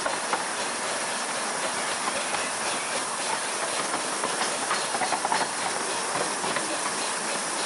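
Bassett-Lowke Class 30 Atlantic 15-inch gauge miniature steam locomotive running, with a steady hiss of steam and light clicking of wheels on the track.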